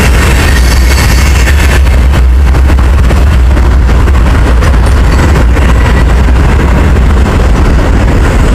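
Freight train's hopper cars rolling past close by: a loud, steady rumble of steel wheels on the rails with a constant deep low drone.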